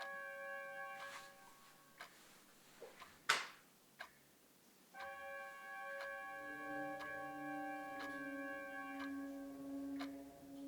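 A clock ticking about once a second under a sustained, held chord of music. The chord drops out for a few seconds, with a short loud whoosh about three seconds in. It then returns with a lower note added.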